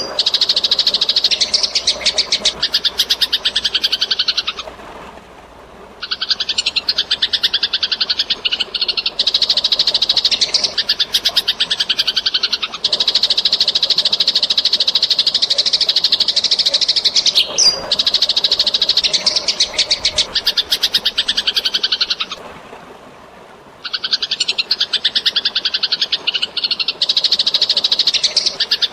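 Eurasian tree sparrows chattering in rapid, harsh runs of fighting calls, with running water mixed in underneath. The chatter pauses briefly twice, about 5 and 23 seconds in.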